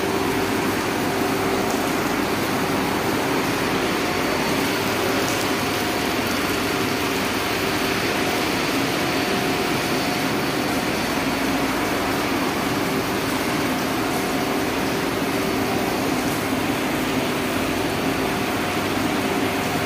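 Steady drone and airflow rush of a tunnel ventilation fan blowing air through a flexible duct, with a constant hum.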